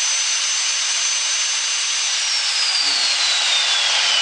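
VV45 magnetic drill's motor running with a dense whirring hiss and a thin high whine. The whine holds steady, then falls steadily in pitch through the second half.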